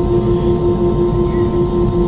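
Steady cabin noise of an Airbus A320 rolling slowly on the taxiway with its CFM56 engines at idle. It is a loud low rumble with a steady hum tone on top.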